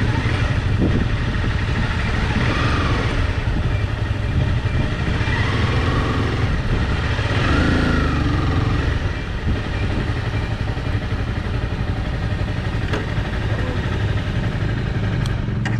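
A Honda CBR250R's single-cylinder engine running at low speed as the motorcycle rolls slowly over grass, then running more quietly from about nine seconds in as it comes to a stop.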